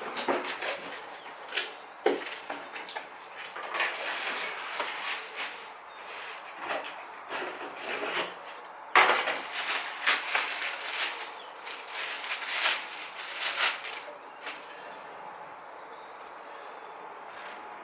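Parts and packaging being handled: a busy run of knocks, clicks, scraping and rustling, which stops about three-quarters of the way through and leaves only faint steady hiss.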